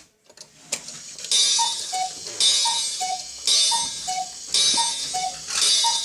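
Black Forest cuckoo clock calling "cuck-oo" over and over, about once a second: a higher note then a lower one, each with a puff of hiss from the bellows. A few light clicks come before the first call.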